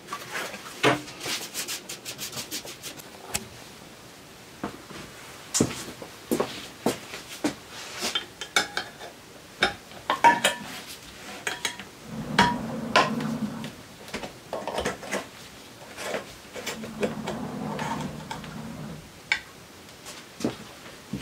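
Tools and parts being handled on a workbench: scattered knocks, clicks and light metallic clinks, with two spells of low rubbing or scraping, one about twelve seconds in and one about seventeen seconds in.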